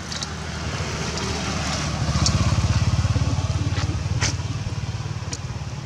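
A motor vehicle's engine passing along the road: it grows louder to a peak about two to three seconds in, then fades away.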